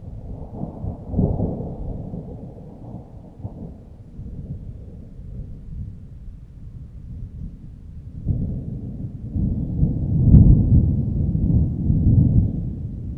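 Thunder rumbling in deep rolls: one swell about a second in that fades to a low grumble, then a longer, louder roll building from about eight seconds in, with a sharp crack at its peak.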